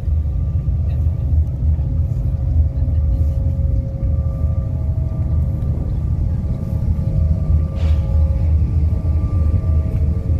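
Large car ferry's engines running while the ship lies at its berth: a steady low rumble with a faint constant hum above it.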